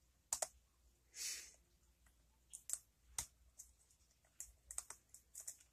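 Faint, irregular metallic clicks and ticks of a lock pick working the pin stack inside a pin-tumbler challenge lock, with a brief soft scrape about a second in.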